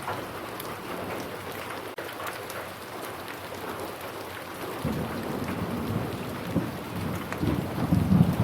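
Steady rain falling, with a low roll of thunder coming in about five seconds in and swelling loudest near the end.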